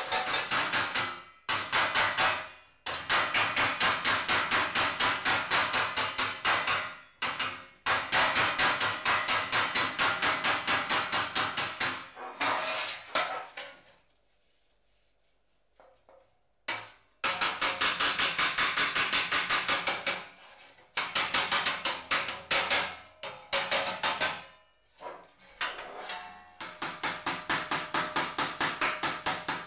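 Hand hammer striking a sheet-metal motorcycle gas tank shell in fast, even blows, several a second, in runs broken by short pauses. The blows stop for about two and a half seconds near the middle.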